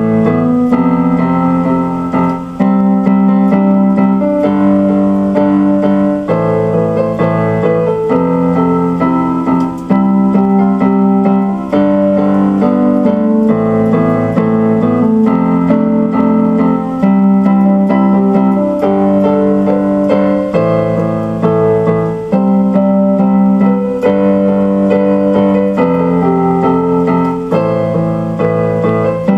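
Electronic keyboard played with a piano sound: slow sustained chords that change about every two seconds.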